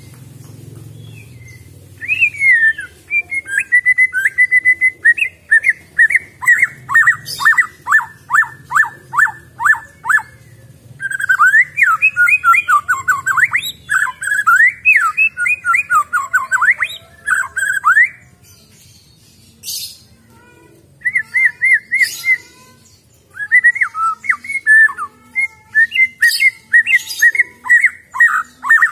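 Wild-caught white-rumped shama singing. Loud, varied whistled phrases start about two seconds in and break into runs of quick repeated down-slurred notes, with a few short pauses between bouts.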